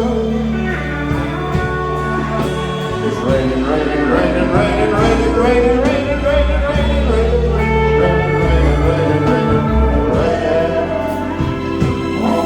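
Slow blues-style band music with a steady bass line and guitar, a wavering melody line above it and no clear sung words.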